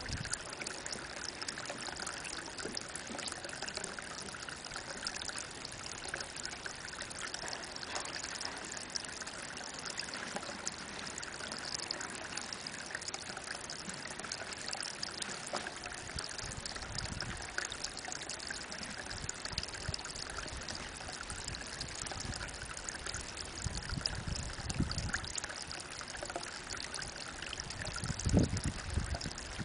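Spring water falling in a thin stream from a mossy bank into a pond, a steady trickling splash. A few low rumbles come in during the second half, the loudest near the end.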